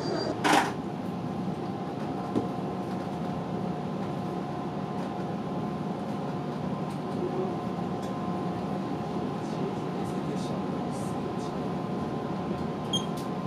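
JR Kyushu 815 series electric train standing at a platform, heard from the driver's cab: a steady hum with two even tones over a noisy background. A single sharp knock comes about half a second in.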